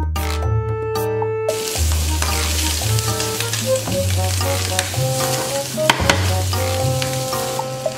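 Sliced onions and ham sizzling as they fry in a pan while being stirred with a wooden spatula. The sizzling starts abruptly about a second and a half in, over background music with a bass line.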